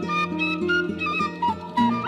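Background music: a melody of quick stepped notes over a steady lower accompaniment.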